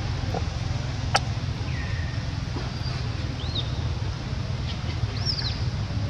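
A few short, high-pitched animal calls, each rising and falling in pitch, over a steady low rumble, with a single sharp click about a second in.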